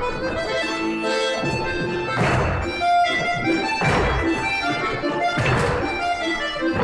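Live accordion accompaniment for a folk-dance class: a melody over sustained chords, with a short accented thud about every second and a half.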